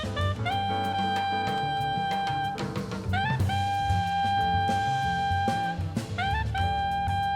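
Jazz with a saxophone holding long notes, each reached by a short scoop up in pitch, over a walking bass line and a drum kit.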